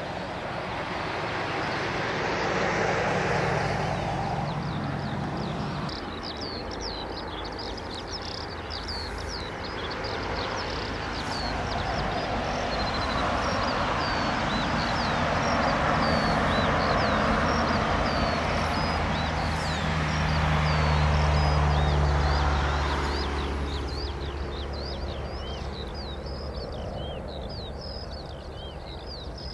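Jet airliner engines rumbling at a distance, swelling and fading several times, loudest about two-thirds of the way through. Small birds chirp over it throughout.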